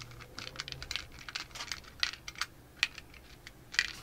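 Light, irregular clicks of buttons being pressed on a chronograph to enter the pellet weight, like typing on a small keypad.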